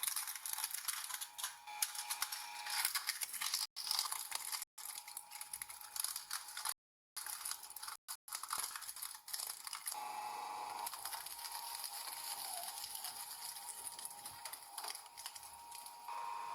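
Objects being crushed by a machine: dense crackling, crunching and tearing, broken by several abrupt cuts between clips, with a steady high hum underneath from about two thirds of the way in.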